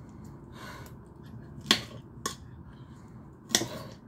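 Three sharp clicks or knocks of kitchen utensils at the counter, the middle one softer, with a brief soft rustle about half a second in.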